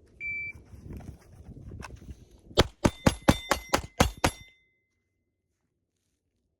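Shot-timer beep, then clothing rustling as a concealed snub-nosed revolver is drawn one-handed, then a fast string of revolver shots emptying the cylinder, the first about two and a half seconds after the beep.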